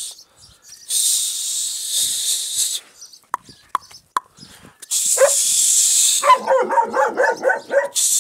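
A dog giving a rapid run of short whining yelps, about five a second, for nearly two seconds near the end. Before it, stretches of loud hissing noise start and stop abruptly, with a few sharp clicks in between.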